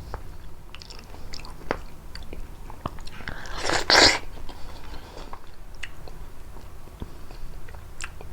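Close-miked biting and chewing of prickly pear fruit: a run of short wet clicks and crunches, with one louder, longer bite about four seconds in.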